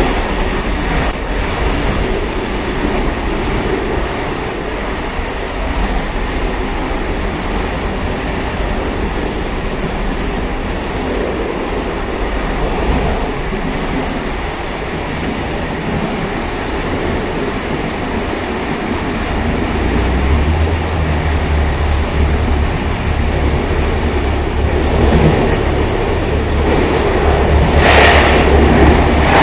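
Railcar running along the track: a steady rumble of wheels and rail noise. A low drone grows stronger about two-thirds of the way through, and the noise swells louder near the end.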